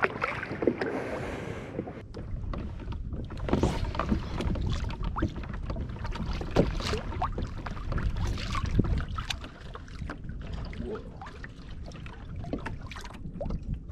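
Water lapping and slapping against a fishing kayak's hull, with a splash about a second in and many small knocks and clicks scattered throughout.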